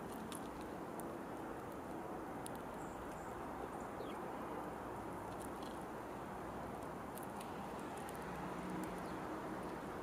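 Outdoor ambience with a steady low background rumble and hum. Faint, scattered high clicks and a few short bird chirps come through it.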